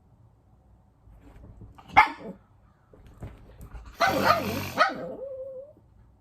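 A dog barking: one short, sharp bark about two seconds in, then a louder, longer bark about four seconds in that trails off into a brief whine.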